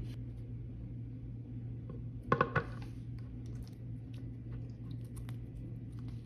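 Glossy, clicky slime being played with by hand: scattered small clicks and pops, with a louder quick run of clicks about two and a half seconds in, over a steady low hum.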